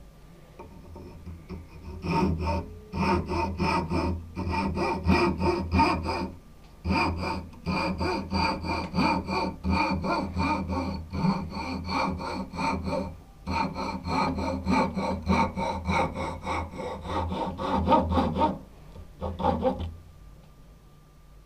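Thin hand saw blade sawing into the end of a wooden hammer handle held in a vise: quick back-and-forth strokes, about four a second, each with a slight metallic ring. The strokes start about two seconds in, break off briefly a few times and stop near the end.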